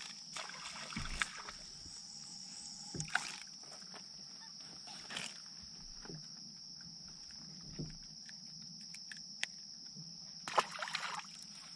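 Crickets trilling steadily in a high chorus, with now and then light clicks and knocks of fishing tackle being handled, a small cluster of them near the end.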